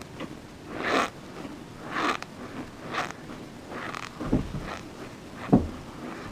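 Close-miked chewing of a mouthful of cornstarch, with a crunch about once a second. Near the end come two duller low thumps, the second the loudest.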